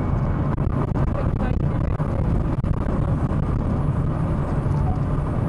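Steady road and engine noise inside a Chevrolet Astra's cabin cruising at highway speed, about 95–99 km/h, heavy in the low end.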